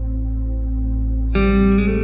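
Ambient background music with a steady low drone. About a second and a half in, a plucked guitar chord with echo comes in.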